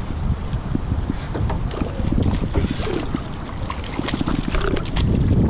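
Wind buffeting the microphone, with water splashing as a hooked peacock bass thrashes at the surface beside the boat.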